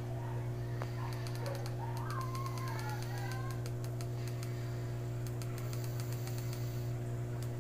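A steady low electrical hum, with a run of fast small clicks from about two seconds in: a computer mouse's scroll wheel being turned.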